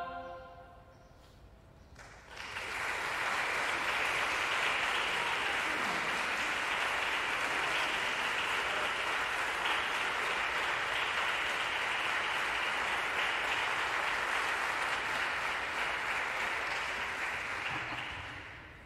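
A choir's final chord dying away with the room's echo, a moment of quiet, then steady audience applause for about sixteen seconds that fades out near the end.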